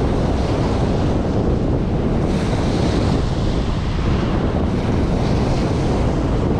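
Steady wind buffeting the microphone with a low rumble, over small choppy waves breaking and washing onto a pebbly beach.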